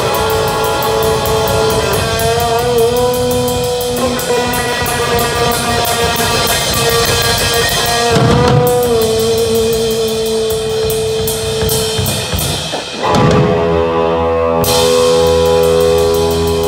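Electric guitar and drum kit playing rock live: held lead-guitar notes with slight bends over steady cymbal strokes and drums. About two-thirds through, the playing dips, a note slides upward, and a full chord rings out while the cymbals stop for a moment before coming back in.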